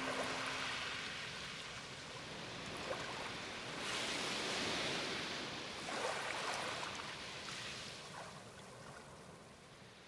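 Gentle sea waves washing against the shore, a soft rush of water that swells twice, about four and six seconds in, and fades out near the end.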